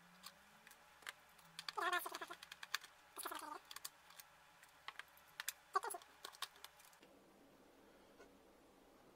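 Clicking and tapping of metal tweezers and a screwdriver against a circuit board and its metal chassis as a USB module is pried loose. Three short wavering squeaks come in among the clicks, about two, three and six seconds in.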